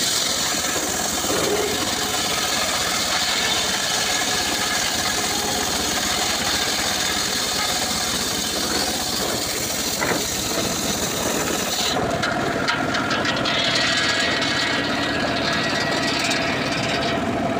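Homemade engine-driven circular saw bench ripping a dry acacia log lengthwise, the blade screaming through the wood. About twelve seconds in the cut ends and the saw runs on without a load.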